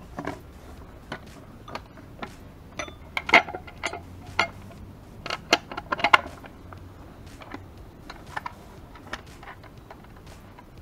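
Small metallic clicks and clinks of a steel bracket, bolt and nut being handled and fitted to a motorcycle headlight casing by hand, busiest from about three to six and a half seconds in and sparser after.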